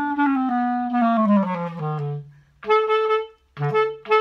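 Clarinet played on a play-test after repadding and regulation: a smooth falling run of notes down to the bottom of the range, then three short notes that leap up from the low note, as the notes are checked to speak cleanly.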